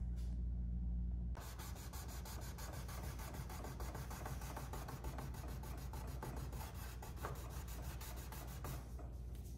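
A cloth rag scrubbing over the wooden soundboard and bridge of an antique grand piano in quick back-and-forth strokes, cleaning the shellac finish with denatured alcohol. The rubbing starts about a second in, cutting in over a low steady hum.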